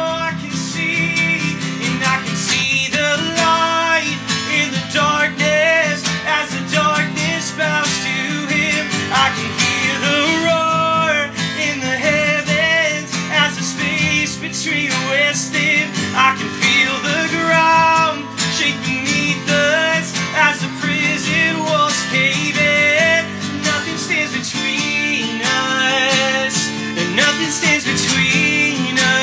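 Acoustic guitar strummed steadily, with a man's voice singing a slow worship-song melody over it.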